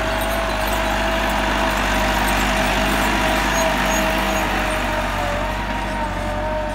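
Massey Ferguson 385 tractor's diesel engine running steadily under load while pulling a cultivator, with a thin whine riding over the engine note.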